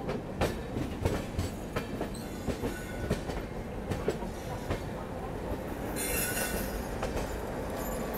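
Wheels of a passenger train crawling slowly into a station, clacking irregularly over rail joints and points, with a brief high hiss about six seconds in.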